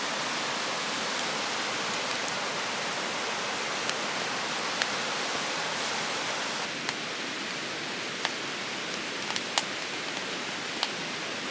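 Firewood burning hard in a tall, compact YOLER fire stand: a steady rush of flames drawn up by its chimney effect, with sharp crackles and pops from the wood, more of them in the second half.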